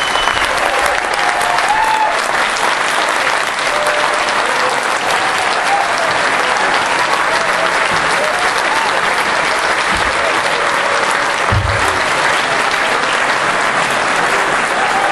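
Large audience applauding steadily, loud and sustained, with scattered voices calling out in the crowd.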